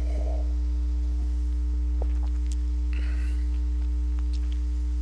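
Steady electrical mains hum, a low buzz with its overtones, running unchanged at a constant level, with a few faint clicks around the middle.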